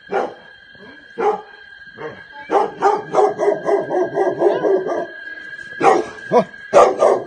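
Dogs barking: a few single barks, then a fast run of short, yappy barks for a couple of seconds, then several louder barks near the end.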